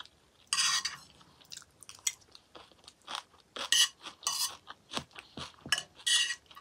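A metal fork scraping and clinking on a ceramic plate as peas and greens are scooped up, mixed with crunchy chewing. The sounds come as a series of short, sharp bursts and clicks.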